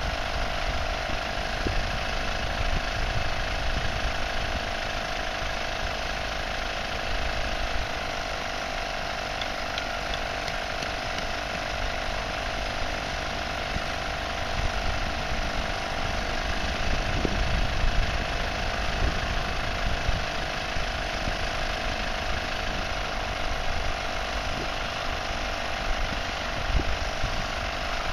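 Two 12V electric air compressors running steadily with an even motor hum, inflating the air beams of an inflatable tent. Wind gusts on the microphone underneath.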